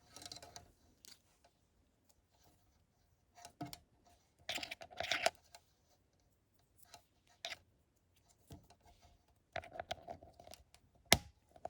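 Faint, scattered rustling and handling noises, paper-craft pieces and tools being moved about on a work surface, with a brief louder rustle about five seconds in and a sharp click near the end.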